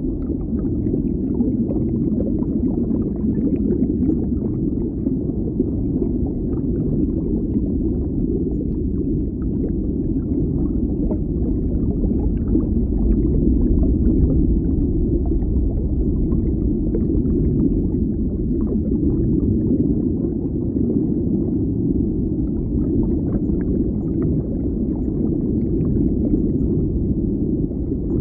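Deep-water underwater ambience: a steady low rumbling wash, with faint scattered crackles above it.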